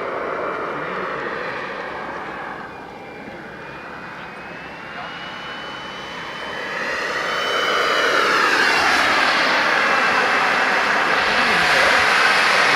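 Radio-controlled model aircraft engine with a thin high whine, flying past. It fades somewhat, then grows steadily louder from about halfway through as the model comes close.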